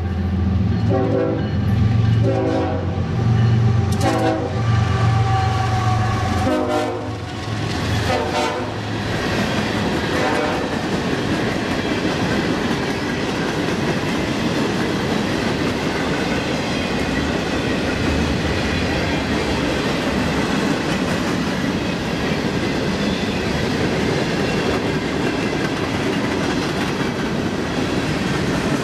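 A diesel-hauled freight train passing close by. The locomotive sounds its horn in several blasts over a low engine rumble through the first nine seconds or so. After that, a long string of gondola cars rolls past with a steady rumble and wheel clickety-clack.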